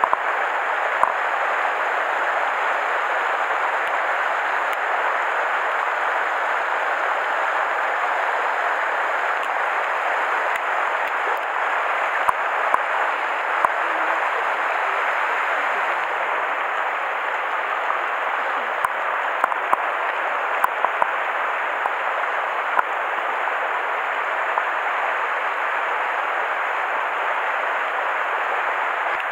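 Mountain stream water rushing steadily over rocks, with a few faint clicks scattered through it.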